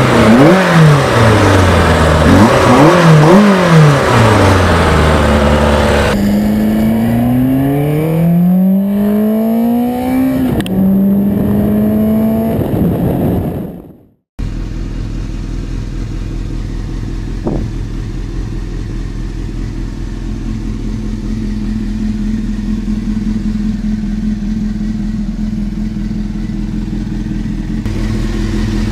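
Bimota YB8's inline-four engine accelerating hard on the road, its revs climbing and dropping through several gear changes before cutting off suddenly. After a moment of silence, a Honda CBR600 F2's inline-four engine runs steadily at low revs.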